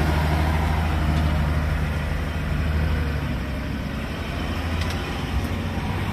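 Diesel engine of a log-laden Shaktiman truck running steadily under load as the truck crawls through deep mud. Its low note eases off a little after about three and a half seconds.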